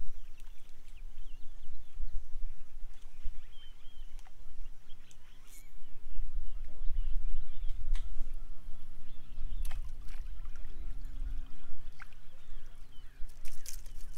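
Outdoor ambience at a lakeshore: a low rumble on the microphone with small birds chirping in the background and a few sharp clicks. A steady low hum runs through the middle.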